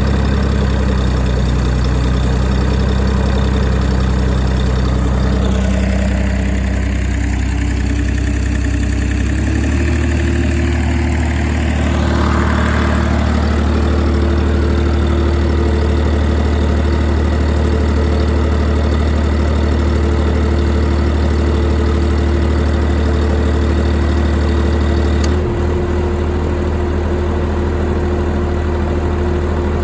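YD385 diesel engine driving an 11 kW generator, running steadily under load. Its note steps up slightly about a third of the way in and changes abruptly, a little quieter, near the end, as the load is switched.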